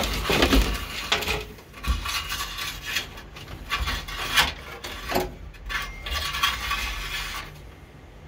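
Wires being handled and fed through a car's rusty sheet-metal body: irregular rubbing and scraping, with a few knocks against the metal.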